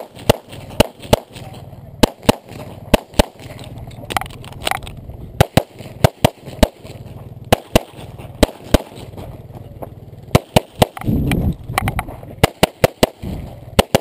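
Semi-automatic pistol fired in a string of about twenty sharp shots, many in quick pairs of two. Around eleven seconds in, a rumbling noise lasting about a second sits between shots.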